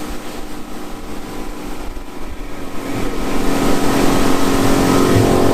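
Motorboat engine running steadily, growing louder about three seconds in.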